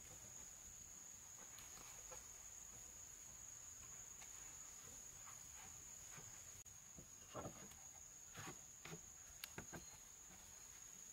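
Steady high-pitched buzz of crickets, with a run of short knocks of wooden beams being shifted by hand in the second half.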